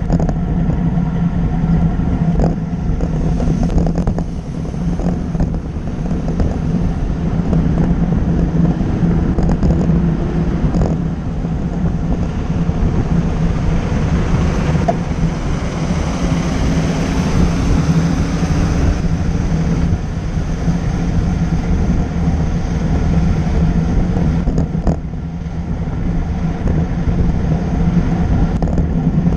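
Steady wind rush over the microphone of a camera on a moving bicycle, mixed with road traffic. About midway, a coach bus passing close alongside swells the noise for several seconds.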